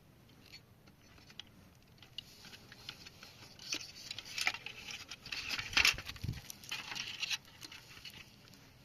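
Irregular light clicking, rattling and rustling from the small plastic parts of a toy washing machine being handled, busiest in the middle, with one dull thump about six seconds in.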